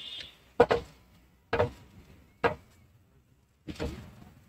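Metal ladle knocking sharply against a metal tray of batter three times, about a second apart, as batter is ladled over a spiral-cut potato on a skewer.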